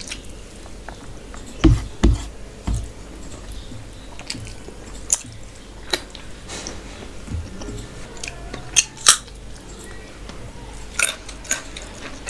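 Close-up chewing and mouth sounds of someone eating mutton and rice, with scattered sharp clicks and a few soft low knocks.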